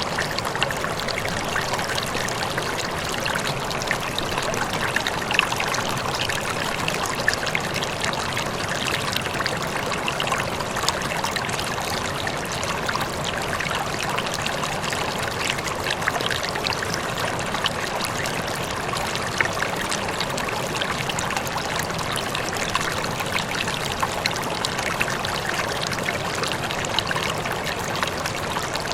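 Steady running water: an even, unbroken rush flecked with many small splashes.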